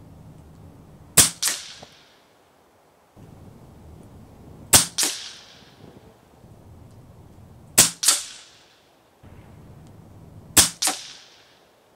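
Four shots from an RTI Arms Priest 2 PCP air rifle, about three seconds apart. Each sharp crack is followed about a third of a second later by a second, weaker crack: the pellet striking the 50-yard target.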